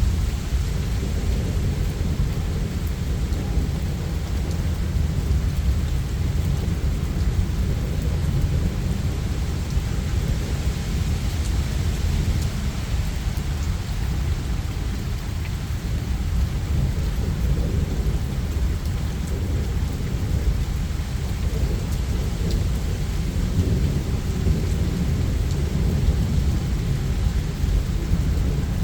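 Steady rain with continuous low rumbling thunder, no single sharp crack standing out.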